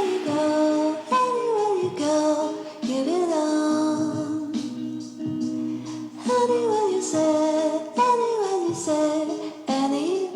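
Background music: a melody of sliding notes in repeating phrases over held chords, with no drum beat.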